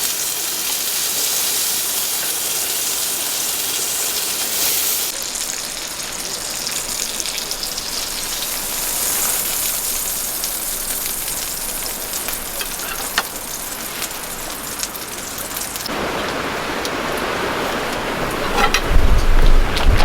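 A steady hiss with a few faint clicks. Near the end, gusts of wind buffet the microphone with a loud, uneven rumble.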